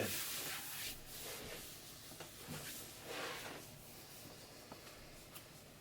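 A person's soft breathing, one breath at the start and another about three seconds in, with a few faint clicks between.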